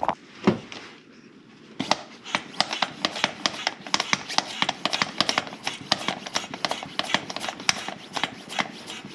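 Hand pump of a cooling-system pressure tester being worked: a rapid, steady run of clicks, about four a second, starting about two seconds in. The pumping pressurises the engine's coolant system to check it for leaks.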